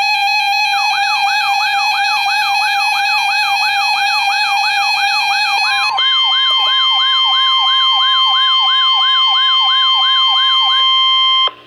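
Weather radio warning alert: a siren sweep rising over and over, about two and a half times a second, over a steady electronic alarm tone. About halfway through, the steady tone switches to the higher 1050 Hz warning tone, which cuts off just before the end.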